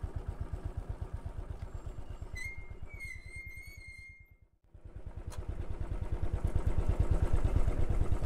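Royal Enfield Bullet 500 EFI's single-cylinder engine running with even low pulses. It dies away to near silence just past halfway, then grows steadily louder again. A high wavering whistle sounds for over a second about two and a half seconds in.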